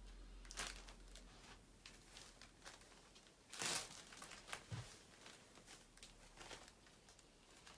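Near silence broken by a few faint rustles and handling noises, the loudest about three and a half seconds in, with a soft low thump just after it.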